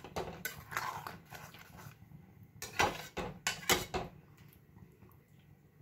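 Metal spoon clinking and scraping against a metal kadai while stirring thick vermicelli kheer: a series of sharp taps, the loudest about three to four seconds in, then quieter toward the end.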